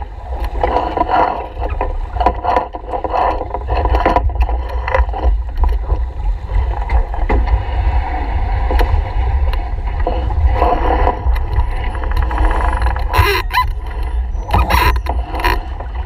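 Small sailboat under way: steady wind buffeting on the microphone and water moving along the hull, with a few sharp clicks and knocks from the deck gear about thirteen to fifteen seconds in.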